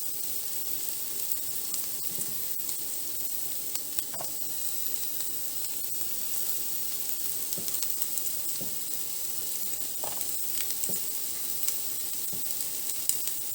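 Tofu and white onions sizzling steadily in hot oil in a frying pan during a stir-fry, with a few light clicks and scrapes from the stirring utensil.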